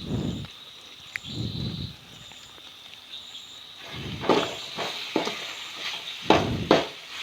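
Spiced tomato-onion masala and oil boiling in a pot: soft bubbling over a steady high hiss. Several sharp knocks follow in the second half.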